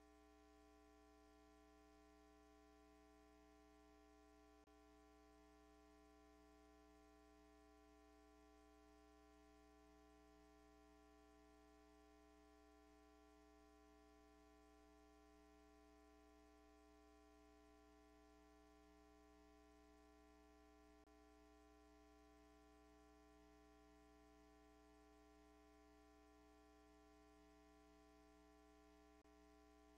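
Near silence with a faint steady hum.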